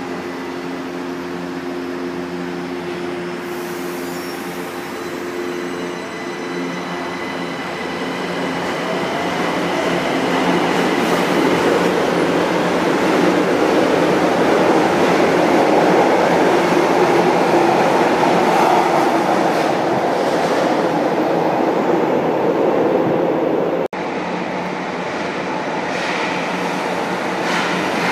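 São Paulo Metro Line 1 train standing at the platform with a steady hum of several tones, then pulling out. The run of the wheels and motors swells to fill the station about halfway through and eases as the last cars pass. The sound cuts out for an instant near the end.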